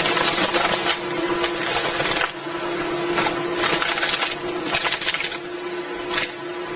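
Tree-cutting machine running with a steady hum, broken by repeated harsh bursts of cutting noise.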